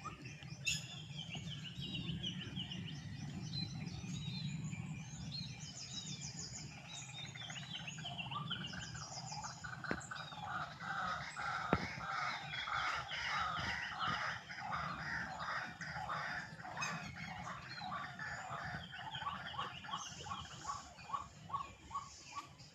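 Several wild birds chirping and calling over one another, with a run of quickly repeated notes from about nine seconds in. A low steady rumble lies underneath.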